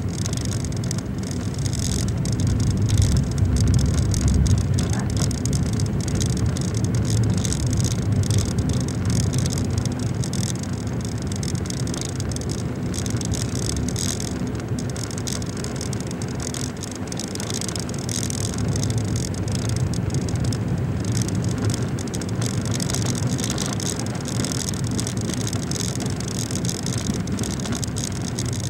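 Road noise inside a moving car's cabin: a steady low rumble of engine and tyres with a faint hiss above it, swelling slightly a few seconds in.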